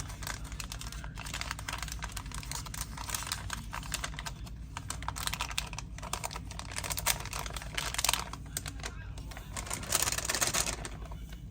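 Crinkling and rustling of a self-sealing sterilization pouch being handled as small forceps are slid into it: a dense, irregular run of small crackles and clicks.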